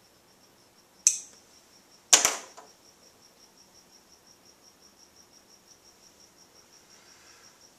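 Steady, soft, high-pitched ticking at about five ticks a second, with a sharp click about a second in and a louder double knock a second later.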